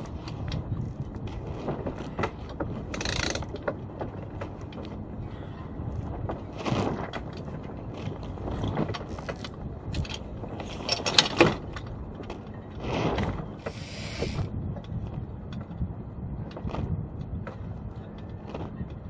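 Rope hauled by hand through a small sailboat's blocks, in a series of short pulls a few seconds apart with scattered clicks between, over a steady low rumble of wind and water.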